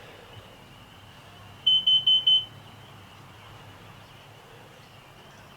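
Kidde combination smoke and carbon monoxide alarm sounding four quick, high-pitched beeps about two seconds in. This is the four-beep carbon monoxide alarm pattern, set off by fumes that the owner puts down to a leaking exhaust.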